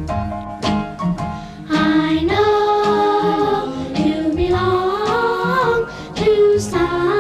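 Music with singing: a short rhythmic beat, then from under two seconds in a held vocal melody that wavers up and down in pitch.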